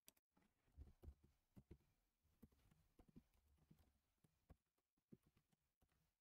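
Faint computer keyboard typing: soft, irregular key clicks and taps.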